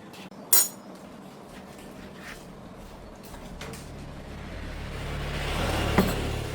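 A single sharp knock, then a motor vehicle going by: its engine rumble and road noise swell for about two seconds to a peak near the end and start to fade.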